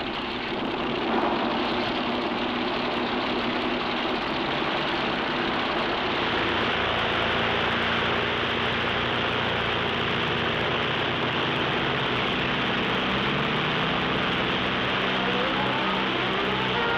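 A giant four-engine propeller bomber's engines running up for takeoff: a loud, steady rush of propeller noise over an engine hum, with the hum rising in pitch over the last few seconds.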